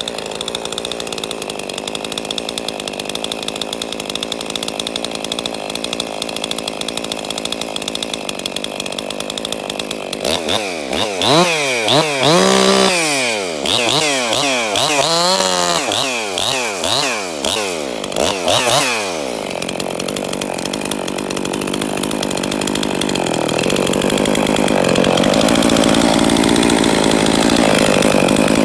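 Ported Husqvarna 262XP two-stroke chainsaw on its first run after reassembly, running steadily at high revs. About a third of the way in, it is revved up and down repeatedly for several seconds, then settles back to steady high-rev running.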